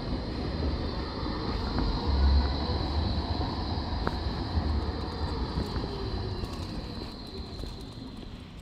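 A tram passing in the street: a low rumble under a high, steady whine, loudest about two seconds in and fading away over the last few seconds.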